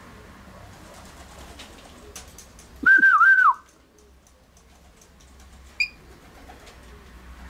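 A person whistling one short, loud phrase about three seconds in: a held note that dips twice and falls away at the end. A brief high chirp follows near the end, over faint outdoor background.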